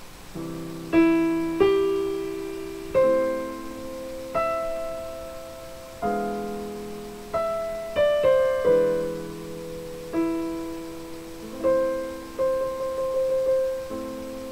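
Piano played slowly, chords struck one after another and left to ring and fade, with a quick flurry of notes about eight seconds in and a short run of quick notes near the end.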